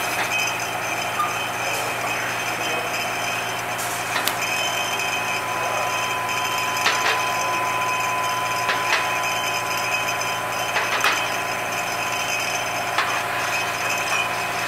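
Steady running hum of a bottling line's turntables and conveyor, with a few sharp clinks of glass bottles being handled on the steel turntable. A thin steady whine comes in for a few seconds midway.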